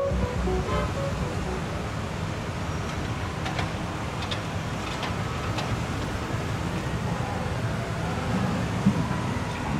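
Heavy trucks running slowly, with a steady low engine rumble and road noise. There is one short bump near the end.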